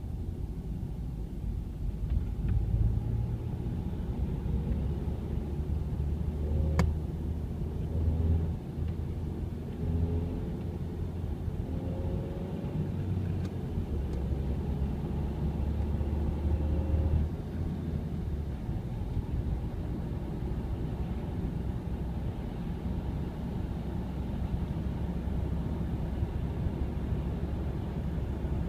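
Ford Mondeo Mk3 on the move, with a steady low rumble of engine and road noise and a single sharp click about seven seconds in. This is the rattle the car makes at around 80 km/h.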